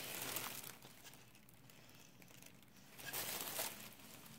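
Plastic shopping bag and packaging crinkling as items are handled, in two short spells: one at the start and another about three seconds in, with quieter handling between.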